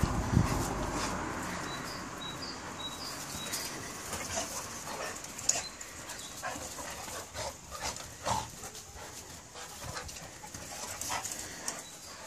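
Two dogs play-wrestling on grass: dog vocal noises and scuffling, with scattered short sounds and a few louder thumps at the start.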